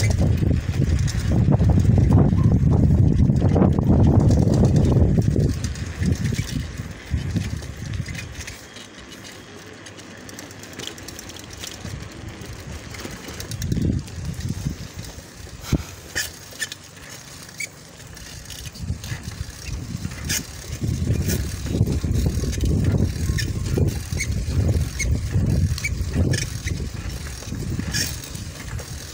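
Wind buffeting the microphone of a camera carried on a moving bicycle: a heavy low rumble for the first few seconds, easing off to scattered small clicks and rattles in the middle, and rumbling again in the last third.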